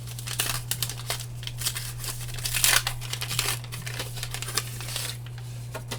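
Rustling and crinkling of trading cards and a foil pack being handled and flipped through, in short irregular bursts that thin out after about five seconds. A steady low hum runs underneath.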